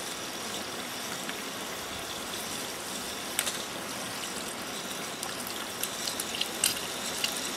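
Steady rush of a fast-flowing mountain river, with a few light sharp clicks from eggs being cracked against a frying pan, about a third of the way in and again near the end.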